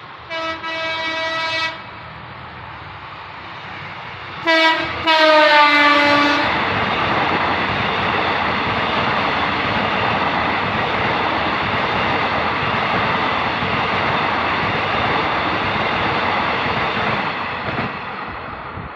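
Indonesian KRL commuter electric train sounding its horn: one steady blast of about a second and a half, then a few seconds later a short blast followed by a longer one whose pitch sags slightly. The train then rolls past with a steady rumble of wheels on rails that fades near the end.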